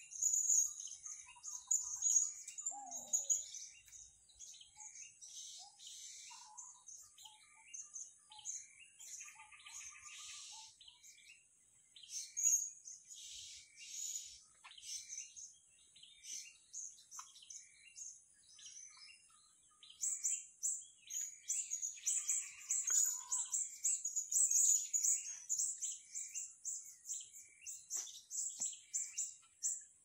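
Small parrots calling with rapid, high, thin chirps, busiest in the first few seconds and again through the last ten, over a faint steady high whine.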